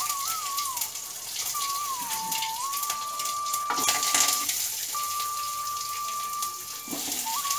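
Hot oil sizzling and crackling in a steel kadai during tempering. About four seconds in the sizzle flares up as sliced onions go into the oil. A thin one-line background melody plays over it, with some notes held.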